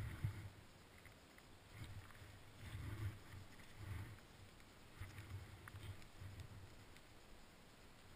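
Skis sliding through snow and ski poles planting in a rhythmic shuffle, about one dull, muffled stroke a second, some with a faint click.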